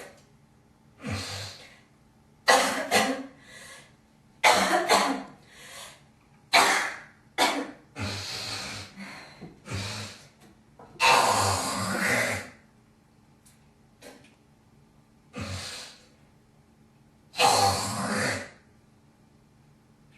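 A woman coughing in repeated short fits, with two longer, rasping hawks as she brings up phlegm.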